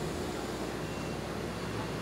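Heavy machinery engine running steadily: an even drone with a faint steady hum.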